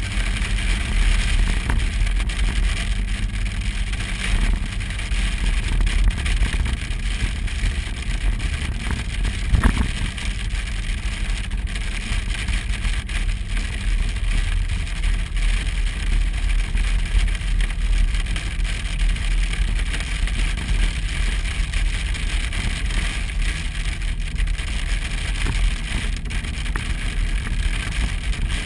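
Vehicle cabin noise while driving: a steady low engine and road rumble under a constant hiss, with one louder knock about a third of the way through.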